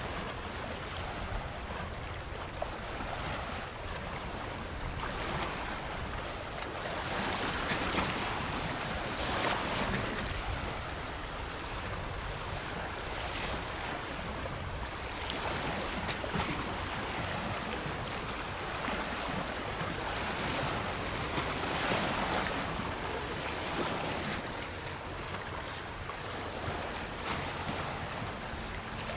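Ocean waves washing onto a beach: a continuous surf wash that swells every few seconds as waves come in and recedes between them.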